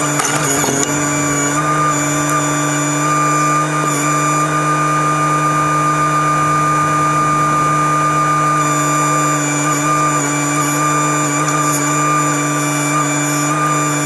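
Volvo EC15B mini excavator's diesel engine running steadily, with a steady high whine over the engine hum.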